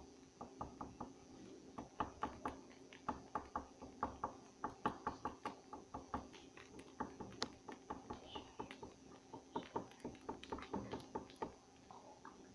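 Pen tip tapping on paper in quick, irregular taps, about three a second, as dots are made all over a drawing.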